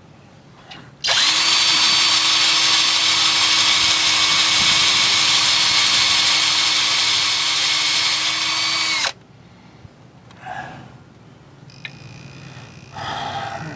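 Cordless drill running at a steady speed for about eight seconds, then stopping sharply, as its bit bores out a stripped bolt hole in an aluminium bell housing to take a helicoil.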